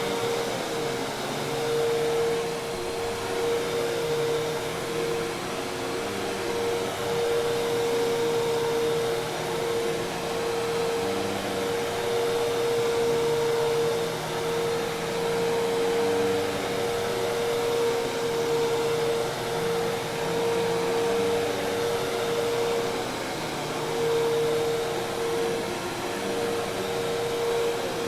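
Hoover Task Vac commercial vacuum cleaner running steadily: a constant motor tone over a rush of air, swelling and easing slightly in loudness.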